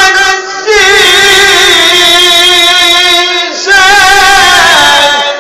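An elderly man singing solo and unaccompanied in a high, strong voice, holding long notes with a wavering, ornamented pitch. He breaks off briefly for breath twice, about half a second in and about three and a half seconds in.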